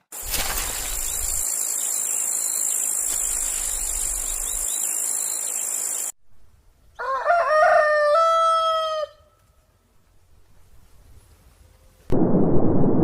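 A rooster crowing once, a two-second cock-a-doodle-doo about seven seconds in. Before it comes a steady hiss with a thin high tone that stops suddenly at about six seconds, and near the end a loud rumbling noise cuts in abruptly.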